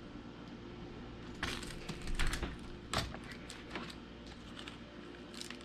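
Stainless steel cookie cutter being pressed and wiggled through cookie dough against parchment paper on a countertop: a run of light clicks and taps starting about a second and a half in, with a couple more near the end.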